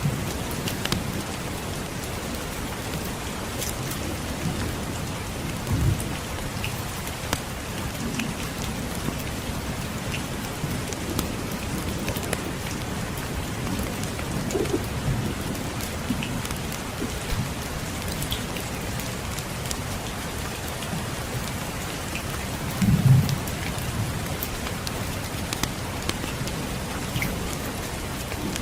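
Steady rain with scattered small fireplace crackles. Low thunder rumbles about six seconds in, and louder again near the end.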